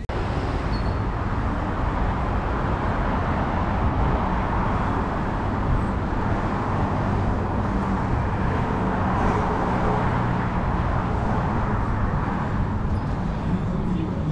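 Steady street traffic: cars and other vehicles passing on a multi-lane city road, a continuous rumbling wash of tyre and engine noise.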